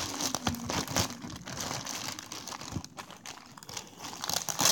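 Plastic courier bag crinkling and rustling as it is handled and pulled open, a steady run of irregular crackles.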